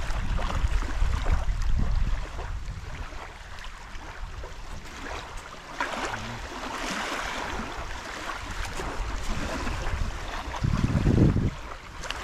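Water splashing and lapping, with wind rumbling on the microphone; a louder low rumble of wind near the end.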